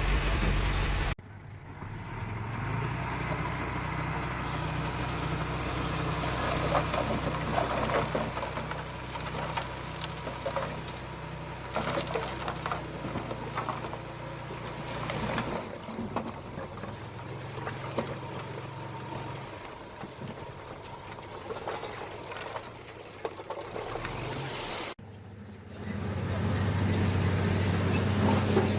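Diesel engine of heavy earthmoving machinery running under load, with clanks and rattles. The sound changes abruptly about a second in and again near the end.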